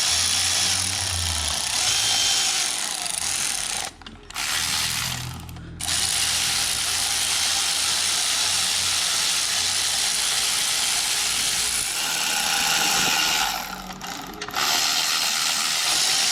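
Cordless Milwaukee impact wrench hammering bolts down in several long runs with short pauses between them, snugging an engine's main bearing girdle bolts in the torque pattern before they are torqued.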